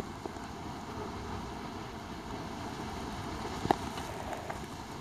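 A thin stream of used engine oil trickling steadily into a drain pan during an oil drain, with one sharp click about three and a half seconds in.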